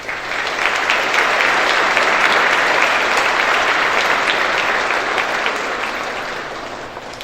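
Audience applauding, swelling over the first second and fading away gradually near the end.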